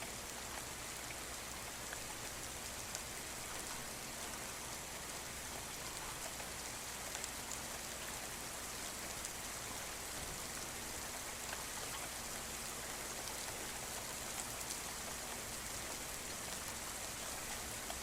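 Steady rain falling, an even hiss with many small, scattered drop hits.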